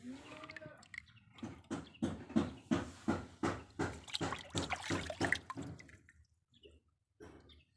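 Water splashing in a quick rhythmic series, about three splashes a second, then stopping about six seconds in.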